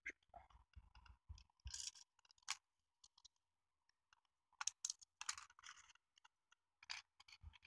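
Faint, scattered clicks and short scrapes of small plastic parts being handled: a Tomix N-gauge 115 series car's body shell and its clear window glazing being taken apart by hand.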